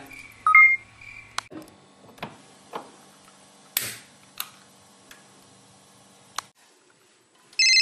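A short electronic beep as the phone call is hung up, then a few faint scattered clicks and taps. Near the end a telephone starts ringing loudly: the caller ringing back.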